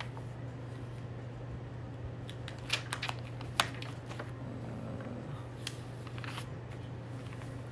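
Paper notebook pages being leafed through by hand: a handful of short flicks and rustles of paper, over a steady low hum.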